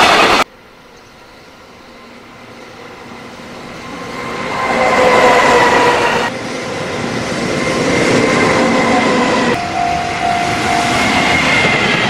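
JR Freight container trains hauled by EF65 and EF210 electric locomotives running past at speed, wheel and rail noise swelling and fading in several short cuts. The first pass cuts off suddenly half a second in, and the loudest pass comes about five seconds in. In the last two seconds a level-crossing warning bell rings steadily over a passing train.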